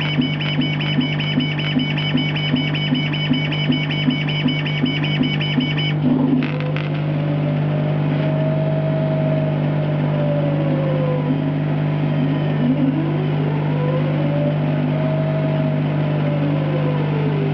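A steady low hum under a rhythmic pulse about two and a half times a second for the first six seconds. Then the machine's motors whine in two slow sweeps that rise and fall in pitch, each about five seconds, as the CNC 3020 laser's gantry speeds up and slows down on long moves.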